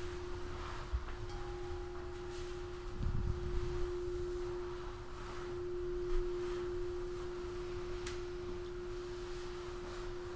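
Crystal singing bowl sustaining one pure, steady tone that swells slightly midway, with a fainter higher tone sounding briefly about a second in.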